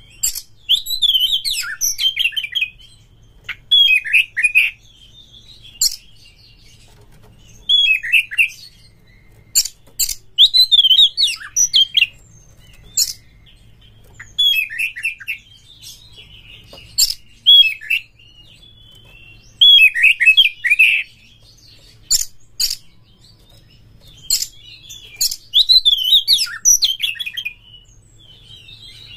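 Oriental magpie-robin singing in bursts of quick whistled and scratchy notes every few seconds, with short pauses between phrases and sharp clicks scattered among them.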